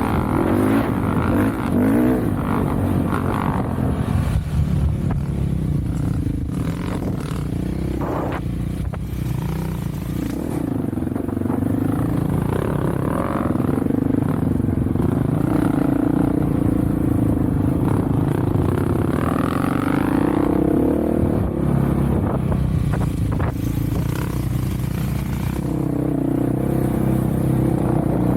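Off-road vehicle engine running under load, its pitch rising and falling as the throttle changes, with a few knocks from the ride over rough ground.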